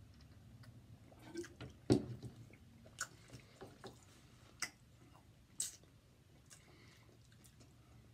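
People drinking from bottles, with scattered mouth sounds and sharp clicks and knocks of the bottles being handled, over a faint low hum. The loudest is a thump about two seconds in.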